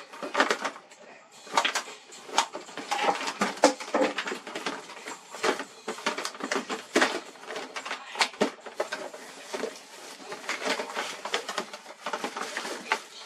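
Hands rummaging among and handling small objects: a run of irregular clicks, knocks and rustles.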